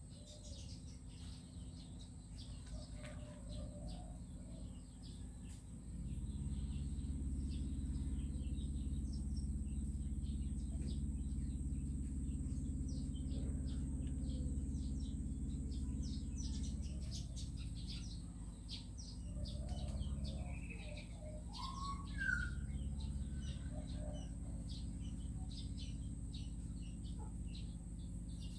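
Background sound of birds chirping in short calls, one rising call about two thirds of the way through, over a steady low hum that gets louder about six seconds in, with a thin high whine held throughout.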